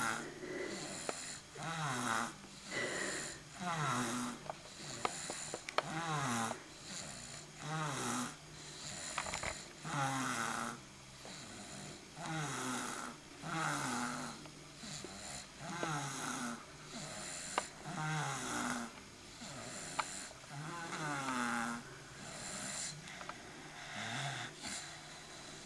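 Snoring in deep sleep: a steady series of rasping snores, one every second or two, each sliding down in pitch, growing a little quieter near the end.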